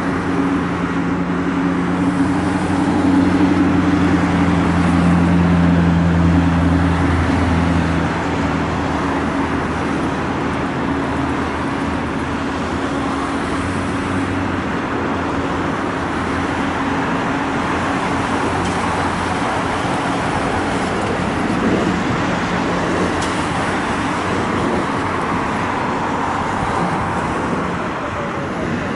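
The Rolls-Royce RB211 turbofans of a Boeing 747-400F freighter run after landing, with a strong low drone for the first several seconds. The drone drops away about eight seconds in as the engines settle toward idle, leaving a steady jet rush while the aircraft slows and turns off the runway.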